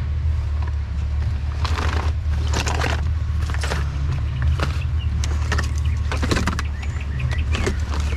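Rummaging through a pile of clothing and gear: irregular bursts of rustling and crinkling, several times, over a steady low hum like an idling engine.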